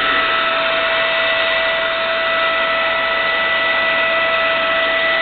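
Dumore Series 57 tool post grinder's 230-volt three-phase motor running free with no belt on, so the spindle is not driven. It makes a steady, high whine over an even hiss.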